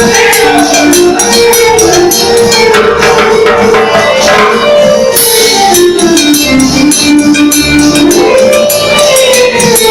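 Electronic keyboard music: a sustained melody line of long held notes over a steady, fast percussion beat.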